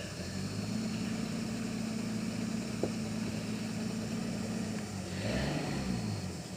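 An off-road 4x4's engine running at a steady speed, then revving up and down about five seconds in. There is a single brief click near the middle.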